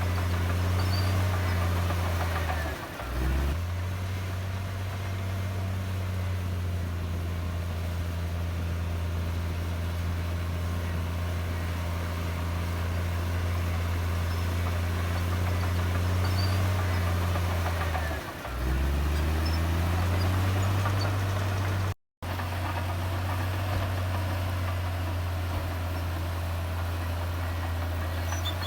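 Heavy diesel earthmoving engine running steadily at a low, even pitch. Twice it briefly drops in pitch and loudness and then picks back up, about three seconds in and again past the middle. The sound cuts out for a split second near the end.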